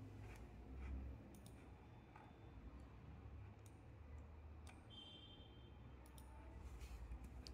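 Computer mouse clicking: a handful of separate single clicks spread through, over a faint low hum.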